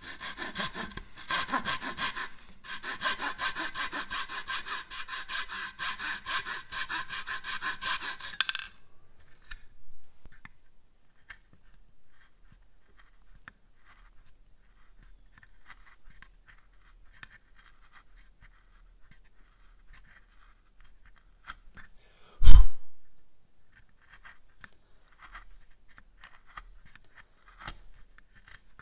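Japanese pull saw flush-cutting a wooden dowel, in quick repeated strokes that stop after about eight or nine seconds. After that there are faint small clicks from paring the dowel stub with a small blade, and one loud single thump near the end.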